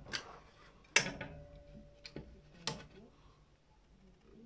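Metallic clicks of a Reximex Throne PCP air rifle's cocking action being worked by hand: four short sharp clicks, the loudest about a second in.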